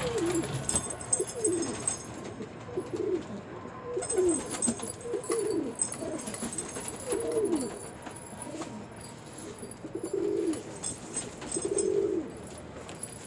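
Domestic pigeon cooing over and over, a series of low falling coos about one a second, the last few held longer.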